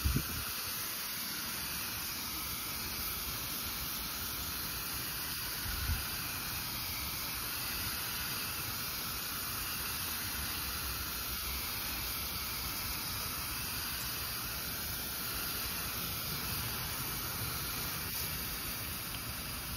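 Steady hiss of a garden-hose spray nozzle on its mist setting, a fine water spray hitting a car's side window glass. There is a brief low thump about six seconds in.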